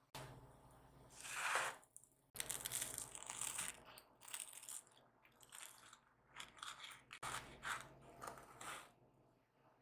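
Kitchen food-preparation sounds: ingredients and utensils being handled, scraped and crunched in uneven bursts, broken by sudden cuts between short edited clips.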